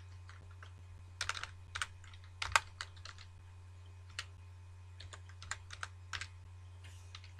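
Keystrokes on a computer keyboard typing a web address, in short irregular runs of clicks with pauses between, over a steady low hum.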